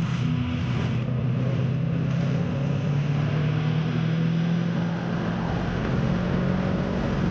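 A vehicle engine running at a steady speed, with wind and road noise.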